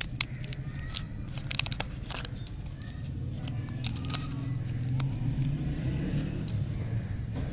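Bubble-gum lollipop wrapper being peeled open by hand: crinkling and crackling with many sharp clicks, over a steady low rumble.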